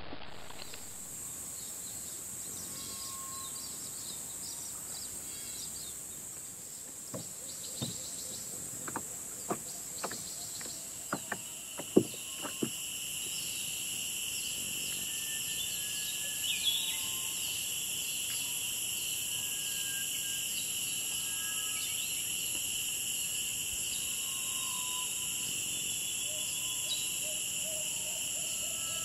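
Insect chorus: a steady high-pitched buzzing, with a lower band joining about halfway. A run of sharp clicks in the middle, and a few short bird chirps.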